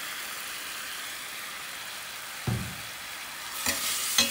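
Chicken in oyster sauce sizzling in a stainless steel pan, a steady hiss. A low thump about halfway through, then a metal spoon scraping and clinking against the pan near the end as it is stirred.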